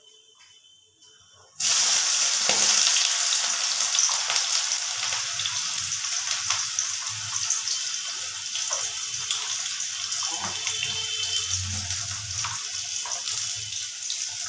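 Sliced onions tipped into hot oil in a kadai: a sizzle starts suddenly about a second and a half in and then slowly eases as the onions fry.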